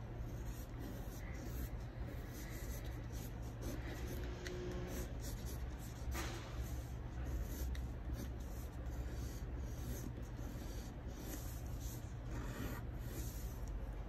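Pencil scratching on paper as leaf strokes are drawn, in soft, irregular strokes over a steady low hum.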